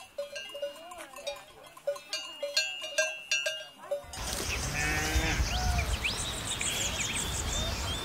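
Cowbells clanking and ringing now and then on grazing cows. About halfway through, the sound cuts abruptly to a louder outdoor background of steady wind noise with birds chirping and a brief animal call.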